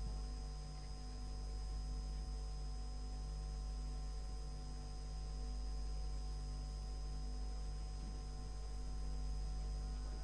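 Steady electrical hum with hiss underneath, the background noise of an old recording during a pause in the recitation.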